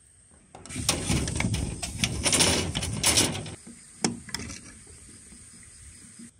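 Scratchy rustling and clicking of steel wire being handled for about three seconds, then a single sharp click as pliers snip the wire.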